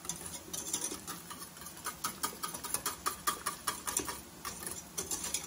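Wire balloon whisk clicking and scraping against the sides and bottom of a stainless steel saucepan as cream béchamel sauce is whisked while it heats and thickens. Quick, uneven ticks, several a second.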